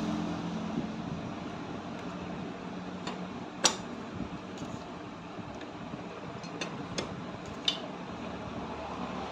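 A few sharp metallic clicks from a socket wrench on an extension bar working the cylinder-head nuts of a motorcycle engine, the loudest about four seconds in, over a steady background hum.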